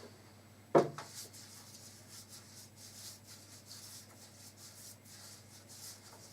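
Soft, irregular rubbing and scraping of glue being spread across the surface of a jigsaw puzzle with the glue bottle's applicator. About a second in there is a single sharp knock.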